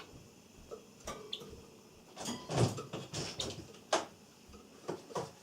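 Java sparrow pecking and tearing at komatsuna leaves while standing on them: irregular small clicks and leaf rustles, with the loudest bursts about two and a half and four seconds in.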